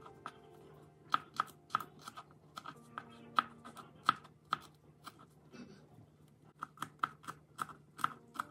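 Kitchen knife chopping on a cutting board: sharp, uneven knocks about two or three a second, easing off briefly near the middle.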